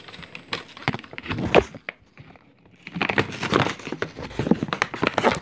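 Crinkly plastic packaging being handled and pulled about in the hands, in two spells of rustling and crackling with sharp clicks and a short lull between.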